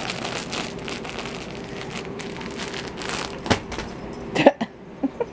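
A crinkly fabric catnip toy rustling as it is shaken and dangled, then a sharp knock about three and a half seconds in and a few short, louder sounds near the end.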